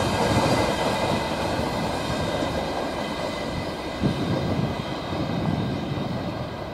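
Wheels of a long freight train's covered hopper wagons rolling over the rails as the tail of the train draws away, a rumble with steady high ringing tones that fades as it recedes.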